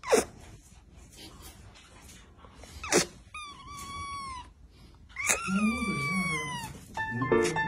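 Kitten meowing twice: a short, level mew and then a longer, louder cry that falls in pitch, each preceded by a short sharp sound. Piano music comes in near the end.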